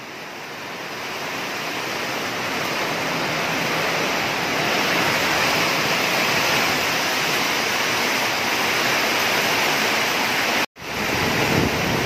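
Heavy thunderstorm rain driven by strong wind: a dense, steady rushing hiss that swells over the first few seconds and then holds. It cuts out for an instant near the end.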